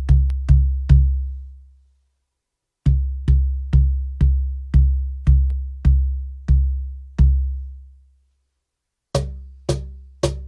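Baltic birch cajon struck by hand: deep bass tones with a long low ring, a few, then a run of about two a second. Near the end come several shorter, brighter strikes, in contrast to the deep bass tone.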